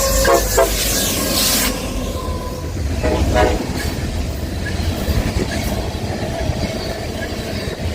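Norfolk Southern freight train running past, with steady rumble and wheel clatter. The locomotive horn ends a string of short blasts about half a second in and gives another brief blast about three seconds in.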